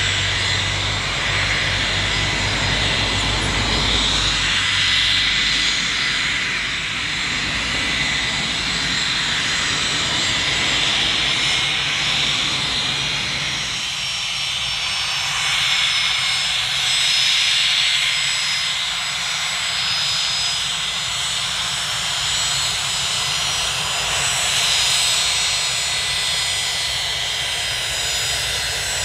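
Gulfstream business jet's two rear-mounted turbofan engines running at taxi power: a steady high whine over a rush of jet noise, with a low rumble in the first few seconds.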